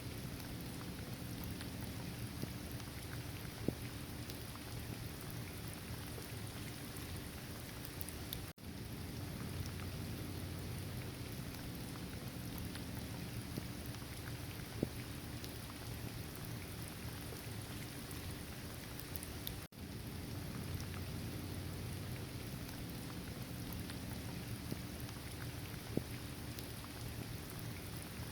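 Steady rain falling, with scattered single drops ticking over an even hiss and a low rumble underneath. The sound briefly cuts out twice.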